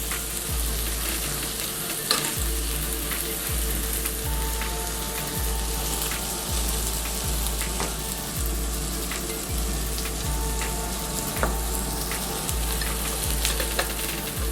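Gardein plant-based burger patties sizzling on a George Foreman contact grill, a steady sizzle with many small crackling pops as juices drip off.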